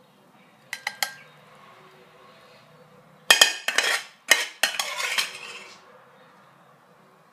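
Metal spatula clinking and scraping against the pan and plate as the stir-fried pork is scooped out and served: three light clicks about a second in, then a loud run of clanks and scrapes from about three seconds to nearly six.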